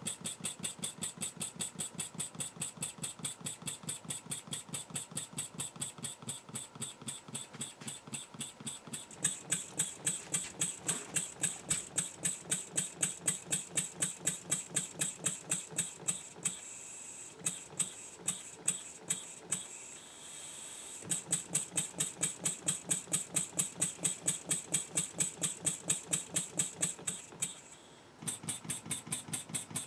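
A Wig-Wag model horizontal engine running on compressed air, giving a quick, even train of sharp exhaust puffs and clicks, several a second. The beat falters and turns irregular for a few seconds past the middle, then drops almost to a stop near the end and picks up again as the globe valve regulating its speed is turned.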